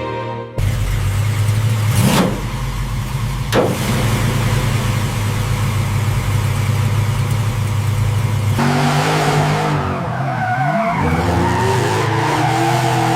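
Car engine running with a steady low drone, starting suddenly, with two short sharp bangs about two and three and a half seconds in. From about nine seconds in, wavering pitched sounds come in over the engine.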